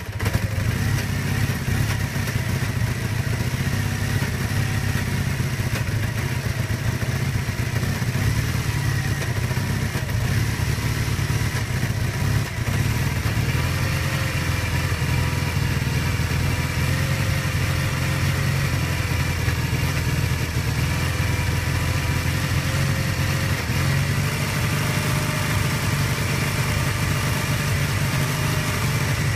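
1981 Kawasaki KZ440B's air-cooled parallel-twin engine idling steadily with the choke about half-way on; the idle is rough.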